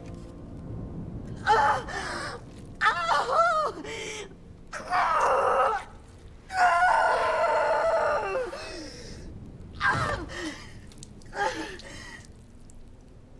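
A woman screaming and groaning in pain through a stillbirth labour, in about six separate cries with wavering pitch and short pauses between them.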